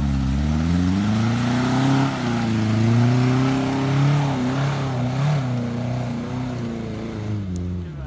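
Daihatsu Feroza's four-cylinder engine revving hard under load as the 4x4 climbs a steep dirt slope. The revs climb in the first second, hold high and waver, then fall away near the end.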